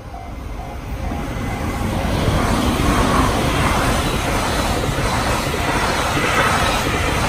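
A Japanese level-crossing alarm chimes in short repeated dings that fade out in the first second and a half. A freight train with container wagons rushes past at high speed, its rumble of wheels and wagons growing loud about two seconds in and staying loud.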